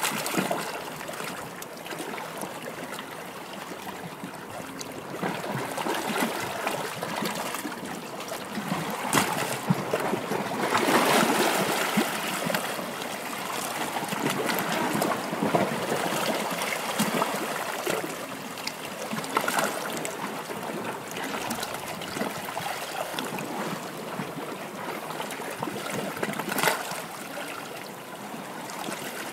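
Running water trickling steadily, with scattered brief splashes and a louder surge about ten seconds in.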